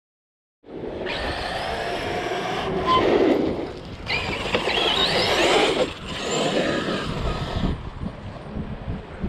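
Electric brushless RC truck driving hard, with motor whine and tyre and ground noise. The sound starts abruptly about half a second in and surges twice, the second time with a rising whine as the truck accelerates.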